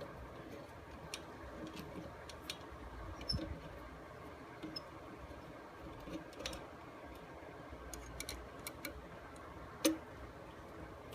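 Scattered small sharp clicks and ticks of a hex key working screws loose in the metal burr housing of a coffee grinder, with one louder click near the end.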